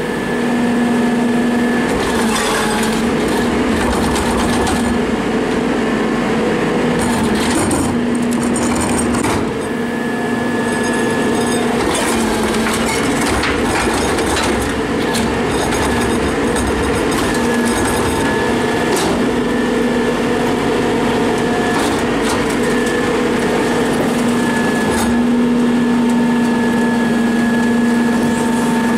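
Rear-loader garbage truck's hydraulic cart tipper lifting a wheeled cart and dumping it upside down into the hopper: a steady engine-and-hydraulic-pump hum with scattered knocks and rattles of the cart and falling trash.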